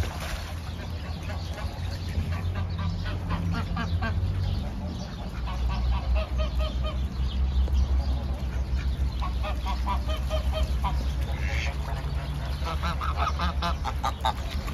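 Geese honking: rapid series of short calls in several bouts, over a steady low rumble.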